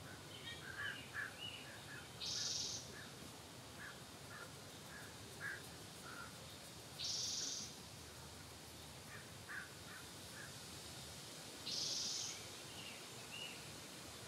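Barred owl giving a raspy, hissing screech three times, each about half a second long and evenly spaced, the rasp typical of a young barred owl's begging call. Small birds chirp faintly in between.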